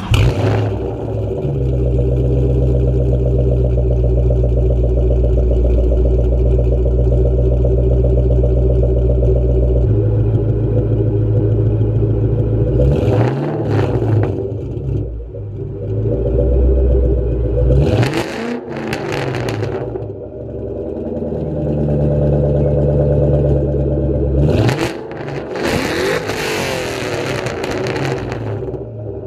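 A 2003 Mustang Cobra's supercharged 4.6 L V8 runs through an SLP Loudmouth cat-back exhaust. Just after starting it idles steadily. It is then blipped to about 2000 rpm in quick pairs about halfway through, and revved hard up toward redline near the end.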